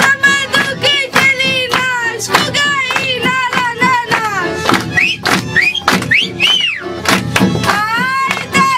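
A woman singing a traditional folk song loudly, with sweeping rises and falls in pitch, over a regular percussive beat.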